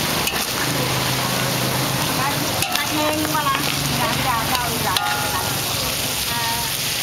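Food frying in a hot pan, with a steady sizzle. Two sharp knocks come about a third of the way in and again past the middle.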